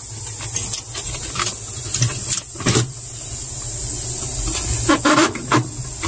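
Hands handling wiring and plastic parts at a no-frost refrigerator's evaporator coil: scattered clicks, taps and rustles, several of them about five seconds in, over a steady hum and hiss.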